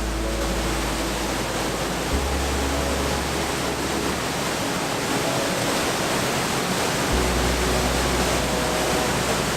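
Kozjak waterfall's water falling into its pool, a steady, even rush of noise.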